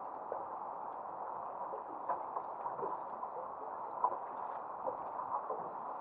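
Water lapping and gurgling against the hull of a small boat, with small irregular ticks and splashes.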